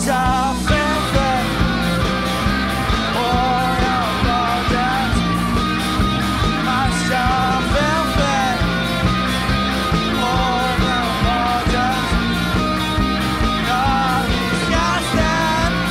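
Rock band playing live: drum kit with cymbals keeping a steady beat under electric guitars, with a male singer's voice.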